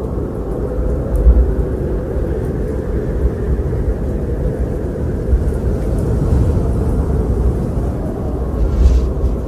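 Eerie wind blowing in a low, steady rush, swelling slightly in gusts about a second in and again near the end.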